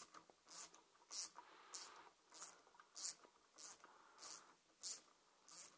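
Hand driver turning out the flywheel bolt of a 49cc two-stroke pocket bike engine: faint, short rasping strokes, evenly spaced about one every 0.6 seconds.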